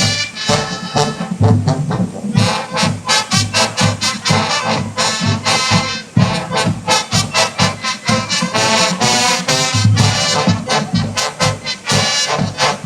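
High school marching band playing loudly: brass horns carry the tune over a steady, driving drumline beat.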